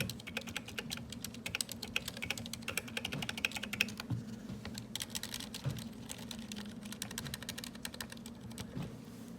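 Ducky One 2 Mini mechanical keyboard with Cherry MX Silent Red switches being typed on quickly: a dense run of soft key clicks that thins out near the end.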